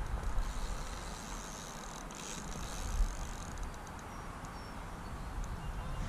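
Low wind rumble buffeting the microphone, with a dull bump about three seconds in and a few faint high ticks after it.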